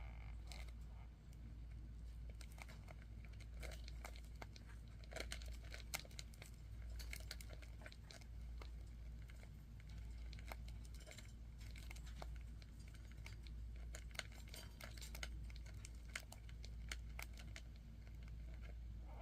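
Japanese rhinoceros beetles mating in their container: irregular scratching and clicking, with sharp clicks scattered throughout, over a steady low hum. This is the strange noise the mating beetles make.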